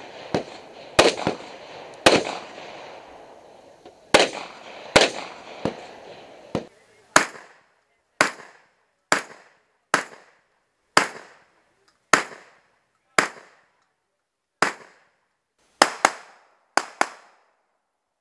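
A string of single gunshots from competition firearms, roughly one a second, each sharp with a short echo. The first several ring on longer, and near the end two come as quick pairs.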